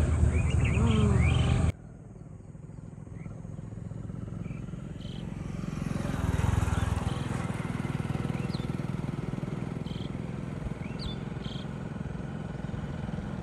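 Motorcycle engines running as bikes ride past on the road, a low steady rumble that swells to its loudest about six seconds in, with short bird chirps over it. A louder burst of sound at the start cuts off suddenly under two seconds in.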